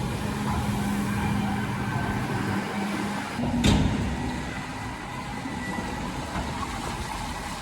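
A farm vehicle's engine running steadily while a load of harvested oats is tipped, with one sharp knock about halfway through.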